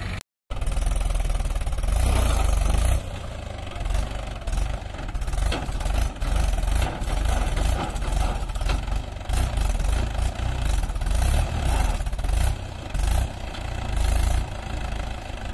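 Tractor's diesel engine working hard under load, its pitch and loudness rising and falling as the driver revs to drag a loaded trolley out of soft soil; it is loudest a couple of seconds in. The sound drops out completely for a moment right at the start.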